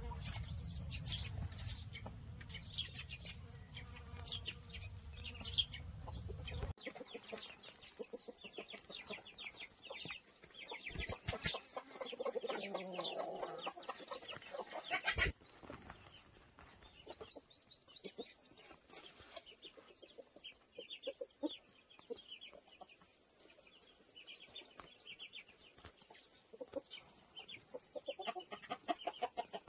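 Chickens clucking, with small birds chirping in quick runs of high notes. A low rumble in the first few seconds cuts off suddenly, and there is a sharp click about halfway through.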